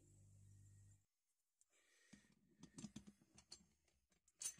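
Low bench-grinder motor hum for about a second, then quiet handling of the nail puller's steel parts: faint small clicks and knocks of metal on metal, with one sharper click near the end.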